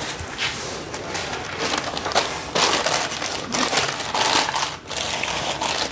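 Plastic bag and newspaper crinkling and rustling in uneven bursts as a rice parcel is folded and wrapped by hand, busiest in the second half.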